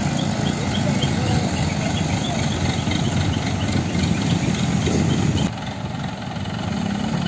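Heavy diesel engine of a mobile crane running steadily, a low continuous rumble that becomes a little quieter about five and a half seconds in.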